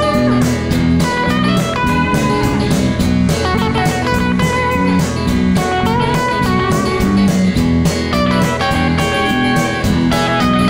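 Rock band playing an instrumental passage with no vocals: electric guitar over bass and drums, with a steady cymbal beat about four times a second.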